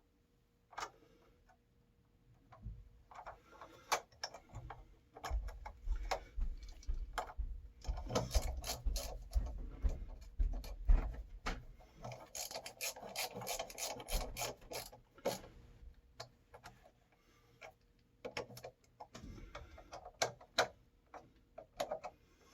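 Irregular clicks, light knocks and rubbing scrapes of hand work on parts, busiest in the middle of the stretch.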